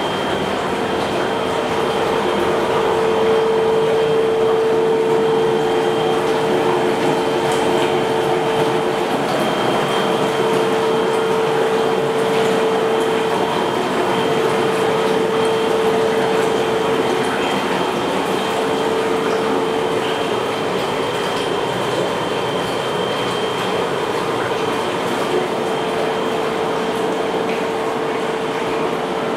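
Whirlpool tub running: the steady hum of its pump with the rush of bubbling water from the jets.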